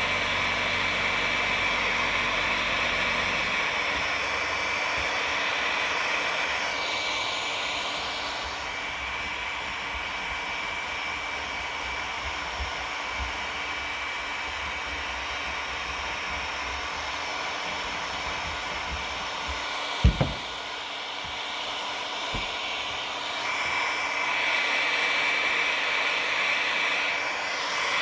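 Weldy hot-air heat gun running steadily, a blowing hiss with a high fan whine, its tone shifting as the nozzle is moved around while heating the polyethylene hull and welding rod. A single sharp knock about two-thirds of the way through.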